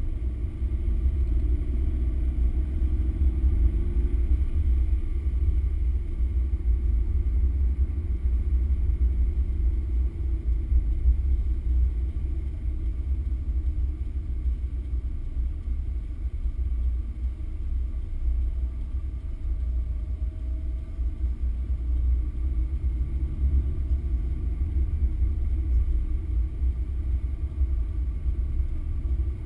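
Car engine and road noise at a steady cruising speed, heard from inside the cabin: a deep, even rumble that barely changes.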